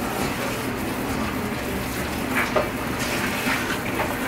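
Kitchen faucet running into a stainless steel sink, the stream splashing over raw meat as it is rinsed and turned by gloved hands, with a few brief louder splashes about halfway through and near the end.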